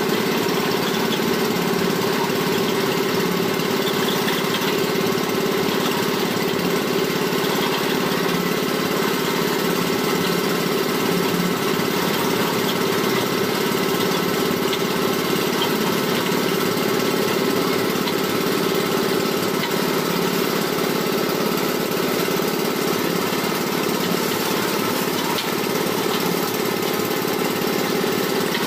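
Small engine of a well-drilling machine running steadily at an even speed.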